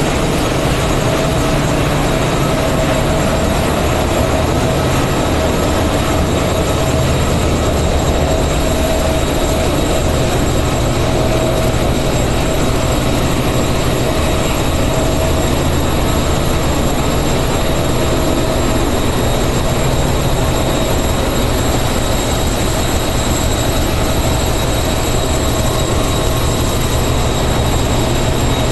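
Loud, steady running noise of a ship's engine-room machinery: a deep rumble under a broad roar, with several high steady whines layered on top.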